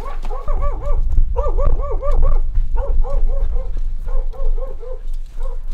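Dog on a leash giving short, high yips over and over, in quick runs of four or five at about four a second, each run broken by a short pause.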